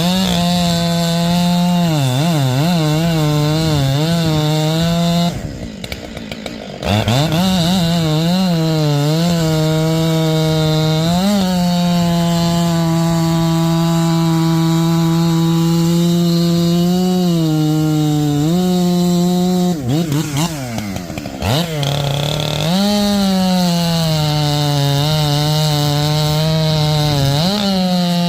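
Husqvarna 592 two-stroke chainsaw with a 32-inch bar cutting wood at full throttle, its pitch wavering and sagging as the chain bites. The throttle is let off twice, the engine dropping briefly toward idle before revving back up into the cut.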